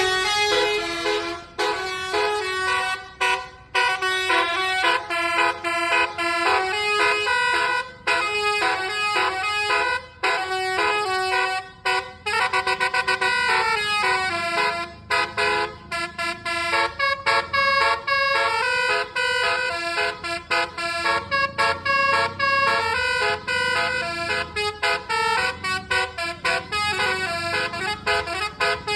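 A bus's basuri musical horn playing a fast melody: short stepped notes, several tones sounding together, broken by brief gaps.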